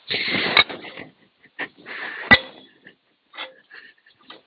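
Seized drive sprocket being pried and worked off the mini excavator's final drive hub: short bursts of scraping and rattling with sharp metal knocks, the loudest a little past two seconds in.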